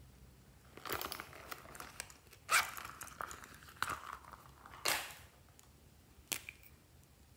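A silicone coin purse being handled and its zipper opened, with a lipstick in a clear plastic case taken out: a string of short raspy zipper and handling noises, then a few sharp plastic clicks near the end.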